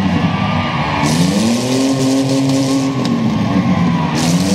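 Demolition-derby minivan engine revving in surges: it climbs about a second in, holds, drops off past the middle, and climbs again near the end.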